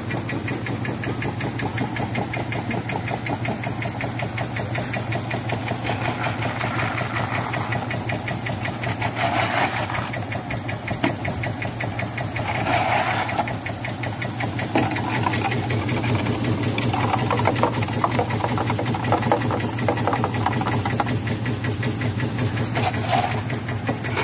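Motorized vibrating sieve for quartz sand running steadily: an engine drone under a fast, even rattle of the shaking steel screen decks, with a hiss of sand pouring off the trays.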